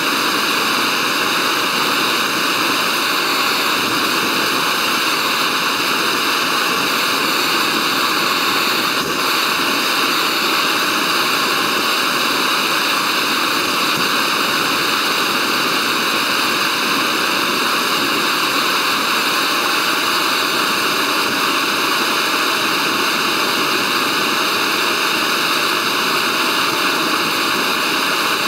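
Small canister gas stove burning under a titanium mug: a steady, even hiss of the burner flame.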